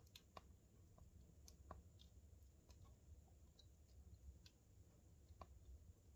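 Faint crackling of a burning log in a wood fire: sparse, irregular small pops and ticks, about a dozen in all.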